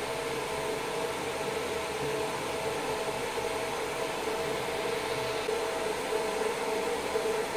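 Cooling fans of a 20 W fiber laser marking machine running steadily: an even whirring rush with a constant hum.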